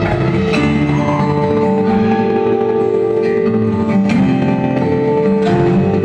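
Music playing: held notes with occasional light percussive strikes.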